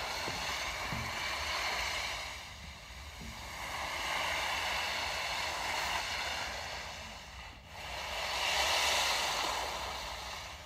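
Sea waves washing on a rocky shore: a rushing hiss that rises and falls in slow surges every few seconds.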